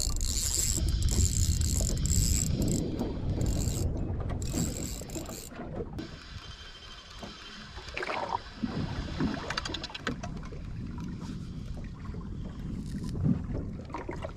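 Spinning reel being cranked steadily to retrieve a hooked fish: a geared whirr with fine rapid ticking from the rotor and line. Wind and water noise run underneath and are heavier in the first half.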